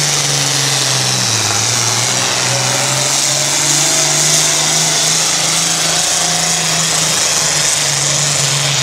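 International Harvester pulling tractor's diesel engine running hard under full load as it drags a weight-transfer sled; a loud, steady engine note that sags slightly about a second in and then holds.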